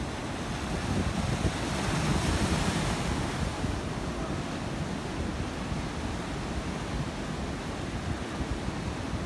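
Ocean surf washing in toward a rocky shore, with wind buffeting the microphone. A wave swells louder about two seconds in, then eases to a steady wash.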